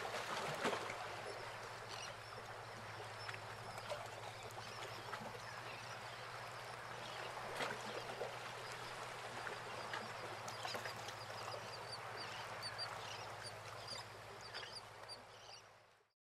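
Faint bird calls over a steady low hum and hiss, fading out near the end.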